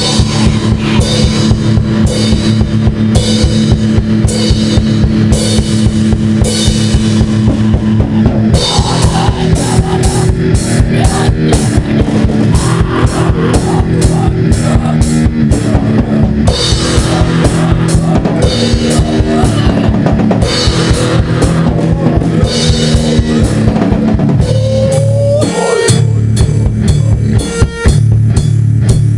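Death metal instrumental: drum kit with a fast, steady bass-drum beat under guitar, with a rising pitch slide about 25 seconds in.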